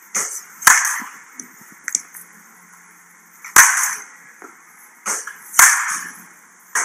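Sharp cracks of wooden baseball bats hitting pitched balls: three loud cracks a couple of seconds apart, each ringing briefly, with a few fainter clicks between.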